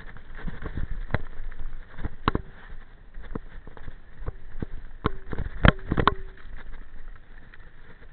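Mountain bike rattling down a rough dirt trail: irregular sharp knocks and clatter from the bike over roots and stones, some with a short ring, over a steady rush of tyre and wind noise. The knocks bunch up and are loudest about five to six seconds in.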